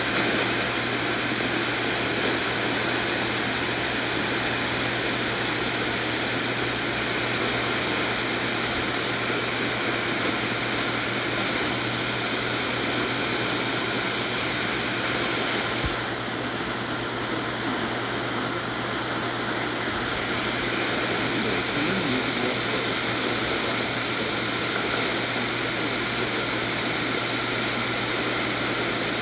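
Radio static: the steady hiss of a weak or empty radio channel on an SDR receiver, with a constant low hum underneath.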